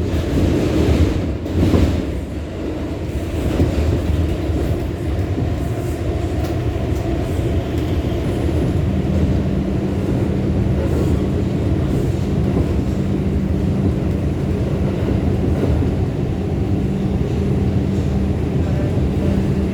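New York City subway train (2 express) running between stations, heard from inside the car: a steady rumble of wheels on track with a brief louder clatter about a second and a half in. A steady low hum sets in about nine seconds in.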